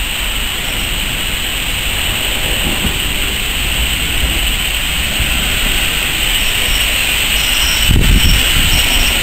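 Steam locomotive rolling slowly past close by, tender first: a steady hiss and rumble with no clear exhaust beat.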